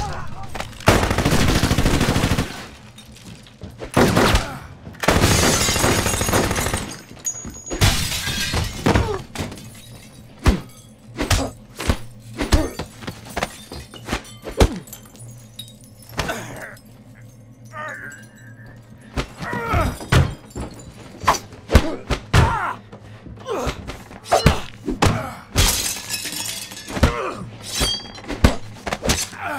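Action-film fight sound effects: a few long, loud crashing bursts in the first nine seconds, then a quick run of punches and body impacts.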